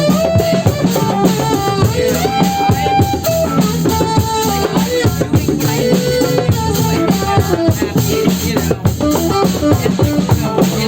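Live band jam: a drum kit plays a steady, busy beat under melodic lines from other instruments.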